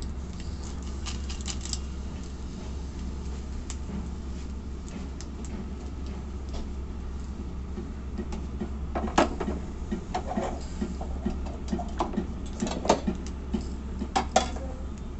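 Food being arranged on a hot sizzler plate: light crackling and scattered ticks, then from about nine seconds a series of sharp clicks and taps as items are set down, over a steady low hum.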